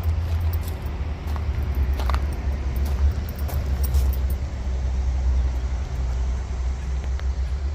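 Steady low rumble with a few light metallic clinks from stainless exhaust pipe sections being handled.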